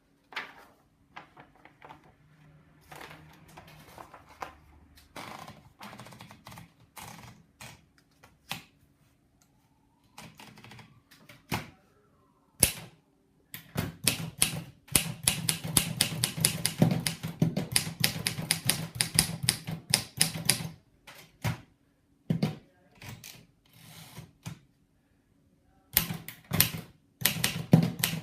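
Imperial Good Companion portable manual typewriter. Scattered clicks and knocks fill roughly the first half, then rapid runs of keystrokes begin about halfway in. The typing breaks off briefly twice and resumes near the end.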